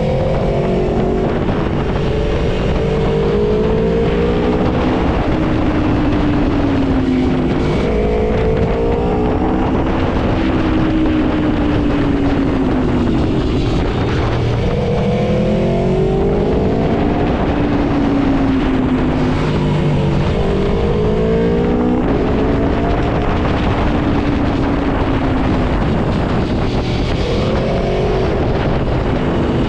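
Aprilia Tuono V4 motorcycle's V4 engine under way, its pitch climbing and dropping again every few seconds as it accelerates and eases off, over steady wind and road noise.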